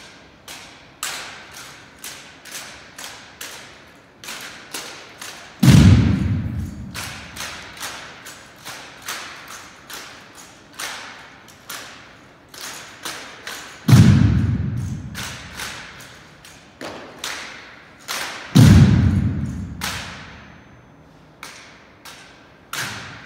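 A drill team's rifle manual of arms: crisp slaps of hands on drill rifles come two or three a second, ringing in the hardwood gym. Three heavy thuds, the loudest sounds, land as the line strikes the floor together.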